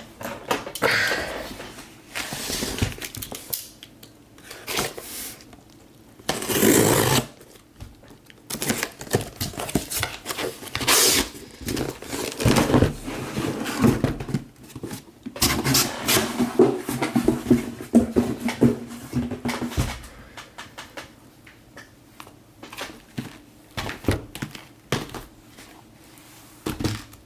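Irregular handling noises on a desk: a run of clicks, knocks and rustles of varying loudness, with a few louder rustling bursts a few seconds in and around the middle.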